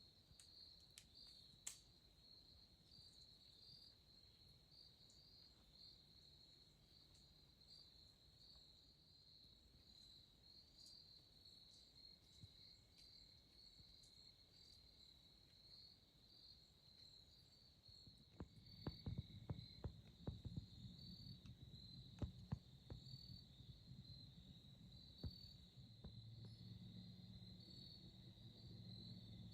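Faint steady high-pitched trilling of crickets. About two-thirds of the way through comes a short run of knocks and clicks, and near the end a low steady hum comes in.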